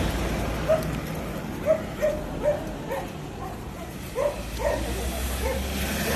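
A dog barking, about eight short barks at irregular intervals.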